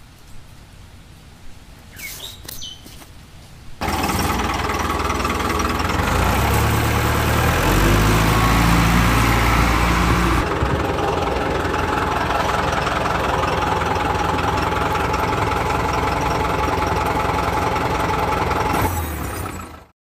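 A vehicle engine starts up abruptly about four seconds in and runs loudly, with a deep low throb for several seconds before settling to a steady run. It cuts off suddenly near the end.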